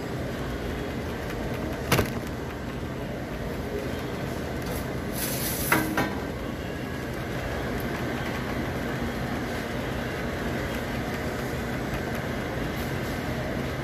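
Steady drone of commercial kitchen ventilation, broken by a sharp knock about two seconds in and two more near the middle, with a brief hiss just before them.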